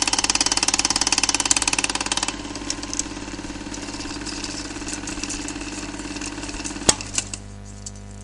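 Film projector running with a rapid, even clatter; the bright clatter drops away about two seconds in, leaving a lower mechanical whirr with a few sharp clicks near the end, then a steady low hum.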